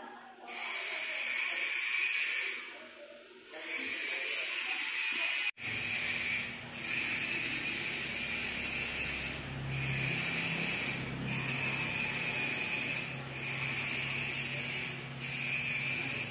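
A loud hiss in stretches of one to two seconds broken by short gaps, with a low hum joining it about a third of the way in.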